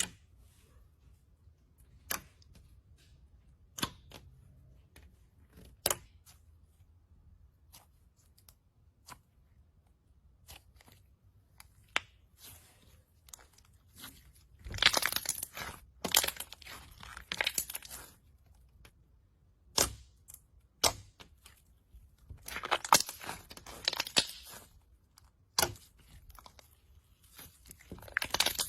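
Glitter slime being handled by hand, making sharp pops and clicks. It starts with single pops a couple of seconds apart, then turns into longer stretches of dense crackling and popping.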